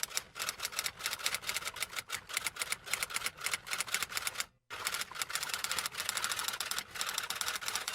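Typing: a rapid run of keystroke clicks that stops briefly about four and a half seconds in, then starts again.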